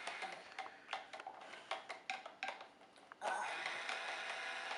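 Plastic stirring stick clicking irregularly against the inside of a plastic toy reactor tank of water as it is stirred, about a dozen light clicks.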